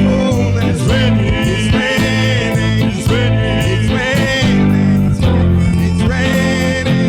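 Worship band music led by guitar over steady, held bass notes.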